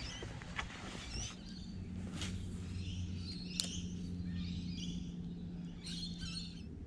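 Small birds chirping in short calls, over a low steady hum, with a few sharp clicks.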